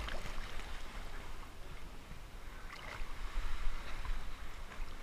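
Seawater sloshing and splashing against an action camera held at the surface, with a low rumble from the water buffeting the housing and a louder splash about three and a half seconds in.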